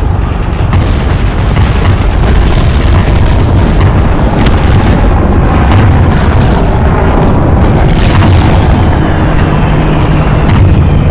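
Battle sound-effect ambience: a continuous deep rumble of explosions and artillery booms, with scattered sharp cracks of impacts or shots. In the last couple of seconds a high whine slides steadily downward over the rumble.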